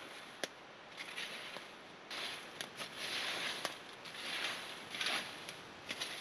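Dry wood and twigs snapping and crackling, with sharp cracks scattered throughout and several short rustling or scraping swells about a second apart.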